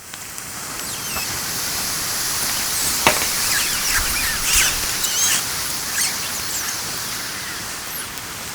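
Lithium-ion battery of a power bank, pierced by a nail, venting gas in thermal runaway: a loud hiss that swells up over the first second or two, with high squealing whistles and crackles over it and one sharp crack about three seconds in.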